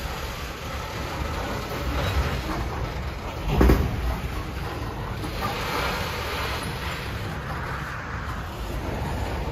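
Freight train rolling past with a steady rumble of wheels on rail, and one loud thump about a third of the way in.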